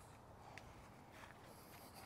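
Near silence, with two faint light ticks.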